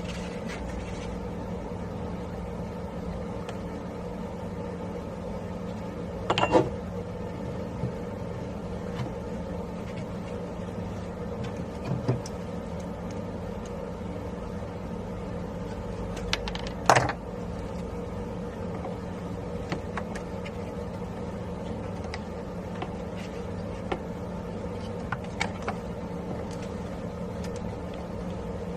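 A steady mechanical hum, even in pitch, with two short knocks, about six seconds in and again past the middle, and a few light clicks.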